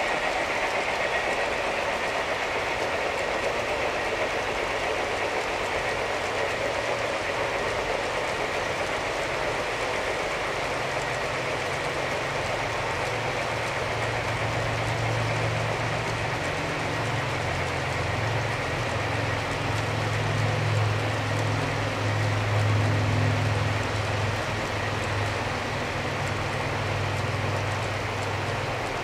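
G scale model freight trains rolling along garden railroad track, a steady clatter of wheels, with a low hum that grows louder about ten seconds in.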